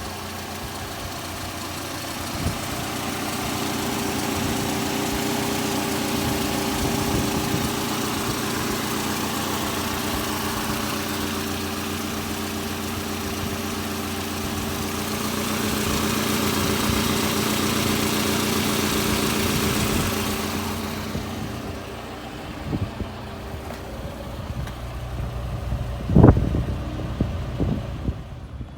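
A 1997 Nissan pickup's 2.4-litre four-cylinder engine idling steadily. It turns quieter about two-thirds of the way through, and a single sharp thump comes near the end.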